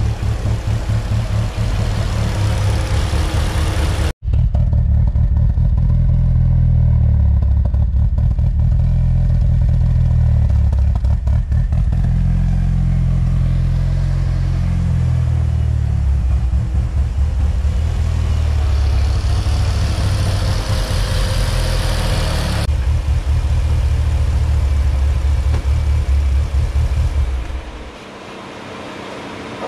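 Mitsubishi Lancer Evolution VIII's turbocharged 4G63 four-cylinder idling hot, then dying near the end and leaving only the radiator fans running. This is the stall at operating temperature that new cam and crank sensors and a new idle control solenoid have not cured.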